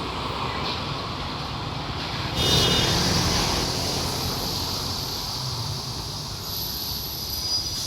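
Roadside street noise of passing traffic, with a louder hiss that comes in suddenly about two and a half seconds in and holds.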